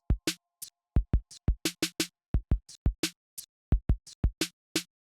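Background music: a drum-machine beat of deep kick thumps and crisp snare and hi-hat hits, with no melody.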